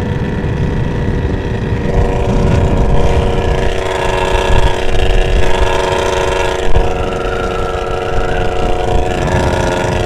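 Kawasaki Ninja 150 R's two-stroke single-cylinder engine running at a steady cruise, with heavy wind rumble on the microphone.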